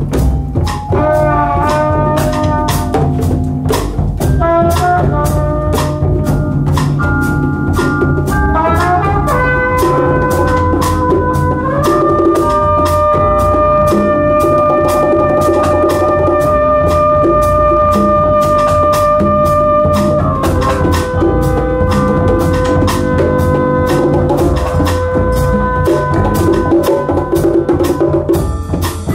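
Live band music: a trumpet plays short rising phrases, then holds one long note and then a slightly lower long note. Underneath runs a busy groove of tall hand drums and a drum kit.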